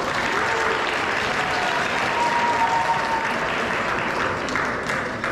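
Audience clapping steadily in a school gymnasium.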